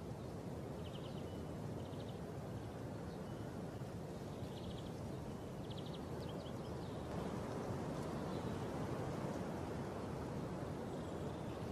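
Outdoor background noise, a steady low rumble, with a few faint, short, high chirps in the first half.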